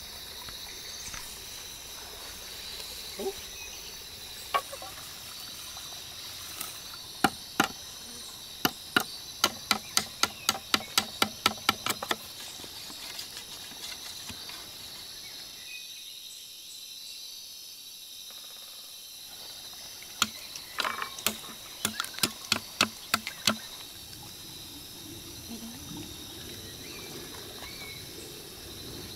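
Knife chopping at a green bamboo pole in two runs of sharp strikes, about three a second, over steady insect chirring.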